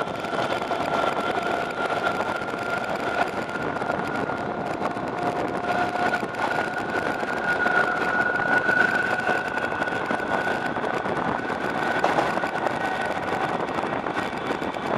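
Northern Ireland Railways Class 80 diesel-electric multiple unit on the move, heard from a window on board: steady running noise with a held high-pitched whine.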